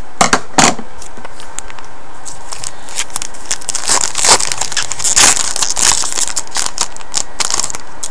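A hockey card pack's foil wrapper being torn open and crinkled by hand as the cards are pulled out. There are a couple of sharp crackles near the start, then a long stretch of dense crinkling through the middle.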